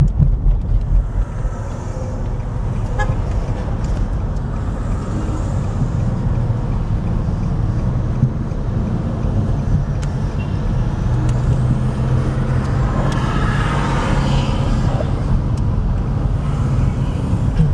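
Road traffic with a flatbed truck's engine running steadily, a low drone that grows stronger in the second half.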